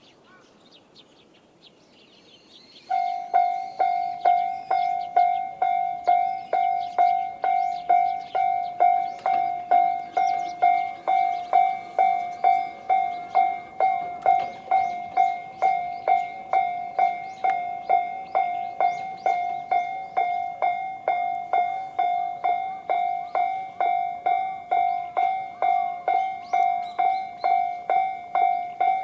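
Japanese railway level-crossing warning alarm, the Tobu Railway electronic 'sound C' tone, starts abruptly about three seconds in and rings a repeating ding about twice a second, signalling an approaching train.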